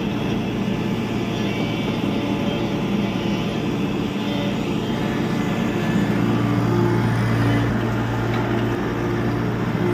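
Tata Hitachi EX70 Super Plus excavator's diesel engine running steadily, swelling louder for a couple of seconds past the middle.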